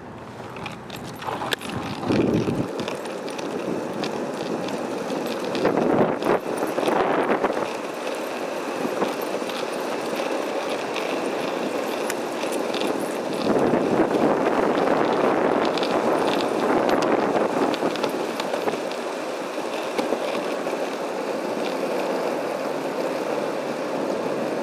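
Skateboard wheels rolling over rough asphalt as a dog pulls the board: a steady rolling noise that gets louder a couple of seconds in, again around six to seven seconds, and from about fourteen to eighteen seconds.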